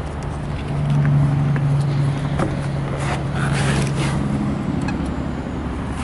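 Deutz three-cylinder diesel engine of a Ditch Witch 3500 trencher running, its low steady note getting louder about a second in and easing back near the end.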